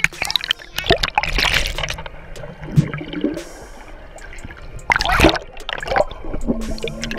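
Water splashing and running, with repeated sudden splashes.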